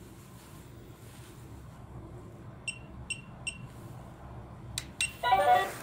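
Three short electronic beeps, about 0.4 s apart, from a bench power supply's buttons as its set voltage is stepped up. About five seconds in come two sharp clicks as the output is switched on, and the powered toy boxing game starts its electronic voice or sound effect.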